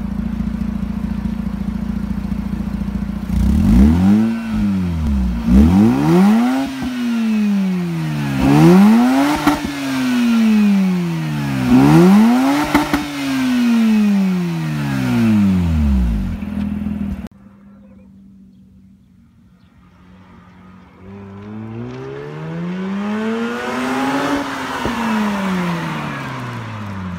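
Mazda RX-8's Renesis two-rotor rotary engine idling, then blipped repeatedly, each rev rising quickly and falling back. Partway through the level drops suddenly to a quieter idle, followed by one slower rev up and back down.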